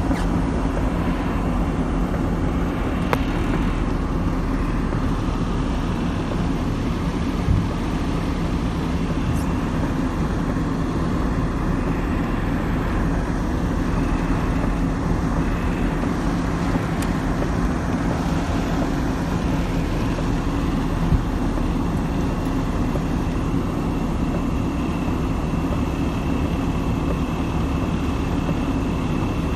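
Floodwater rushing steadily, a continuous low, even noise with no pauses.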